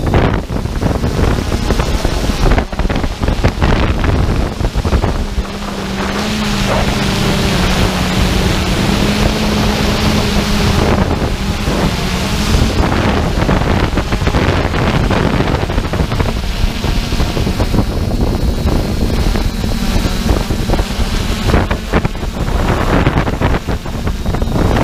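Wind buffeting the microphone: loud, gusty rumbling noise. A steady low hum joins it about six seconds in and fades out near the halfway point.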